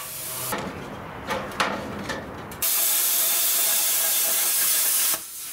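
Handheld plasma cutter cutting steel pipe: a loud, steady hiss of the arc and air starts about two and a half seconds in and cuts off abruptly just before the end. Before it there is a quieter, uneven hiss with a couple of sharp clicks.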